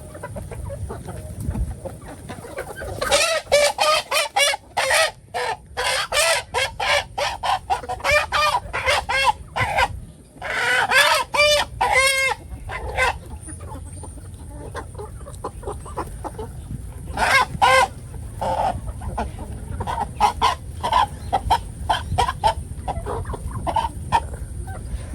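Chickens clucking and cackling in quick runs of loud calls, with a longer drawn-out call about halfway through, then scattered clucks.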